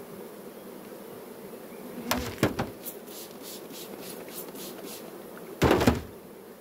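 Honeybees humming steadily from a colony in an open hive, with a short run of knocks about two seconds in and a louder clatter near the end.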